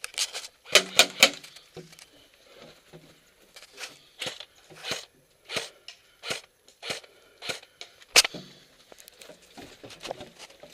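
Airsoft gun firing: three sharp shots in quick succession about a second in, then a string of lighter sharp clicks about every half second or so, and another loud shot just past eight seconds.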